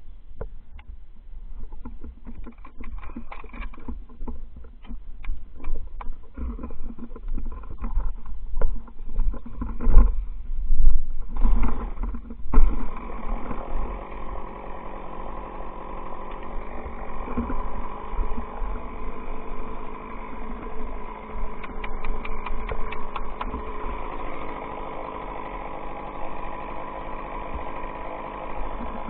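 Chainsaw starting up about twelve seconds in and then running steadily, ready to fell a pine tree. Before it starts there are irregular low thumps and knocks.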